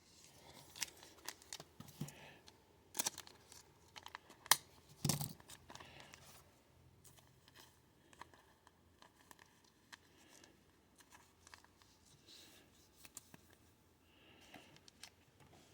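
Trading cards and pack wrapper being handled: scattered taps, slides and crinkles, with a few sharper clicks in the first half and fainter rustling after.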